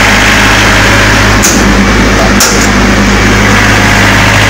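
A 22 kVA Able diesel generator's engine running at a steady speed, heard up close inside its open enclosure as a loud, even hum. Two brief clicks sound over it about a second and a half and two and a half seconds in.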